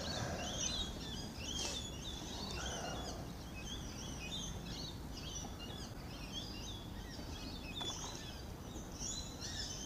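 Many small birds chirping and twittering all the while, with overlapping short calls, over a low steady background rumble.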